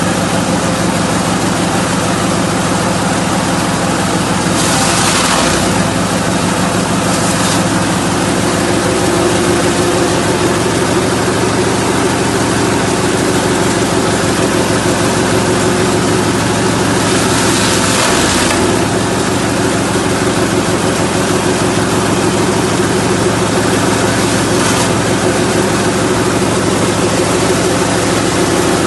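S20-type multi-purpose forage chopper running steadily under engine power, with two brief louder rushing bursts, about five seconds in and again around eighteen seconds in.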